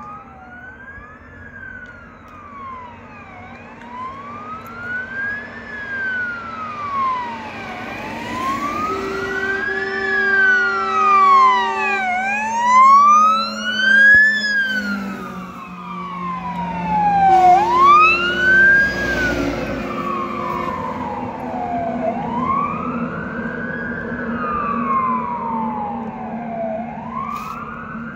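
Sirens of two fire engines, a MAN TGM 18.320 and a Scania P360, on a slow wail, two overlapping tones each rising and falling about every four seconds as the trucks approach and pass. Steady air-horn blasts come about nine seconds in, held for some three seconds, and again around seventeen seconds in. The sound is loudest as the first truck goes by, around thirteen seconds in, when a low note drops in pitch.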